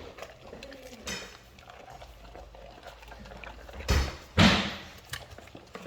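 Cane Corso dog eating a raw tilapia fish: quiet wet chewing sounds, then two loud thumps about four seconds in.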